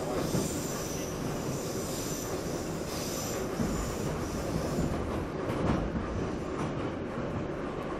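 Moscow Metro train running through the tunnel, heard from inside the carriage: a steady rumble of wheels on rails with a high wheel squeal that fades out about five seconds in, and a few light knocks.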